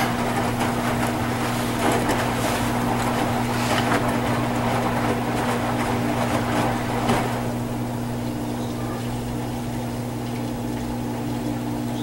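Electrolux LFE10 front-load washing machine in its rinse, water swishing as the drum turns the load over, over a steady motor hum. The swishing eases about seven and a half seconds in, while the hum runs on.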